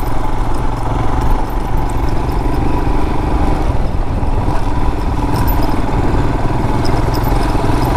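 Royal Enfield Himalayan's single-cylinder engine running steadily while the motorcycle is ridden on a dirt trail.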